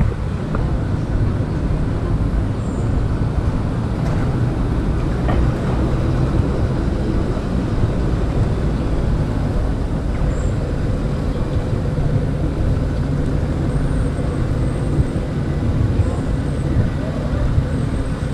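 City street ambience: road traffic running steadily with a low rumble.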